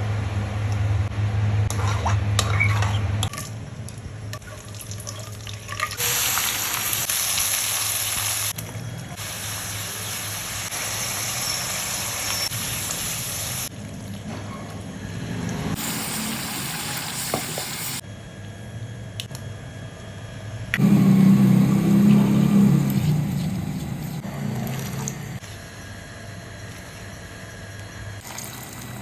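Kitchen cooking sounds in short edited clips, changing abruptly every few seconds: stretches of steady hissing, as of sizzling or running water, and a louder low rumbling stretch a little past the middle.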